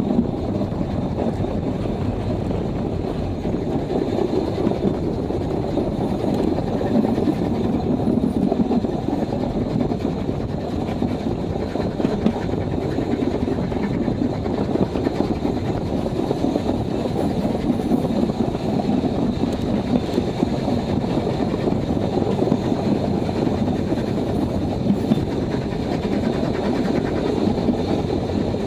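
Narrow-gauge railway carriage rolling along the track at speed, a steady deep rumble of wheels on rails, heard from an open carriage.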